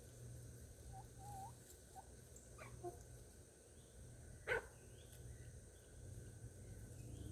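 A dog gives one short, sharp bark about four and a half seconds in, with a few faint short calls before it.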